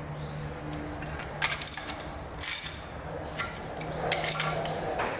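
Wrench snugging up the hold-down clamps on a milling machine table: scattered sharp metallic clicks and clinks, a cluster of them about four seconds in, over a steady low machine hum.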